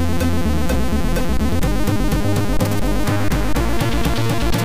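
Commodore 64 SID chip music playing: electronic chiptune with held bass notes and a regular beat of short percussive hits, its upper parts growing busier about three seconds in.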